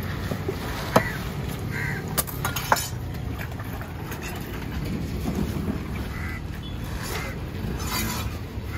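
A few sharp knocks of a knife chopping on a wooden block, with short crow caws now and then and a steady low rumble of road traffic behind.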